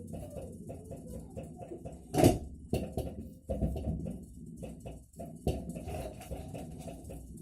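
Atlant refrigerator knocking in a fast, even rhythm of about five knocks a second, with one much louder thump about two seconds in. The knocking is a fault in a new fridge that a voltage stabilizer has not cured.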